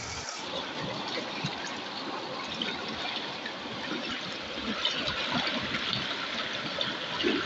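River water running and gurgling over rocks, with a hand sloshing and splashing about in a water-filled rock hole.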